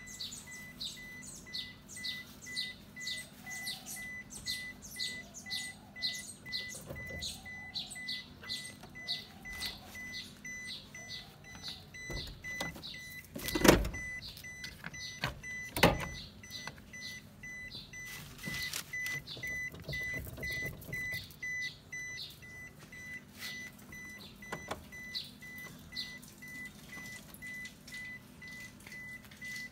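A bird chirping over and over, about two calls a second, over a steady pulsing high beep. About halfway through come two loud clunks from the car seat being adjusted on its runners, after which the chirping thins out. No engine cranking is heard.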